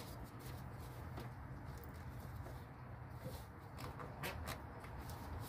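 A few faint clicks and taps from plastic hoses and fittings being handled and pulled loose in a minivan's engine bay, over a steady low hum.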